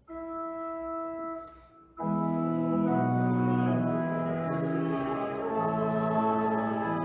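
Church organ playing one held note for just over a second. After a brief gap, full sustained chords come in about two seconds in and carry on steadily.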